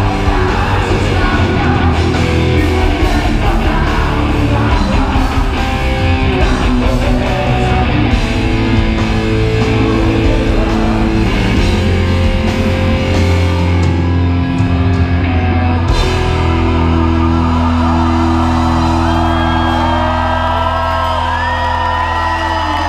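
Live rock band playing distorted electric guitars, bass and drums, with a male lead singer. About two-thirds of the way through, the band settles into long held notes, with sliding high notes over the top.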